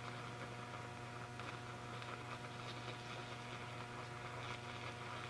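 Low, steady hum from the water around a CRT electron gun submerged in water as AC current passes through it, with a fine crackling fizz of the water bubbling and boiling on the electrodes.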